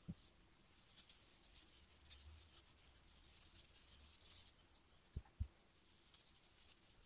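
Faint rubbing of a cloth pad over the wood of a wooden spirit level, in short scratchy strokes. A soft low thump comes at the start and two more a little past five seconds in.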